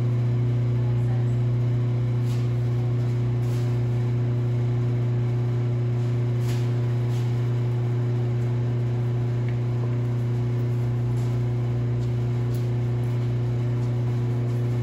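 Steady low electrical hum, typical of a mains-powered motor or shop appliance running, with a few faint light clicks over it.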